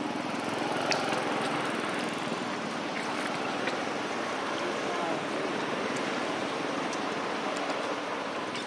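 Steady rushing background noise, with a few faint clicks.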